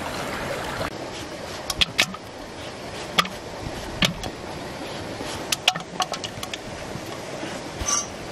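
Green mango being shredded into a metal bowl: irregular sharp clicks and taps, some in quick clusters, over a steady hiss.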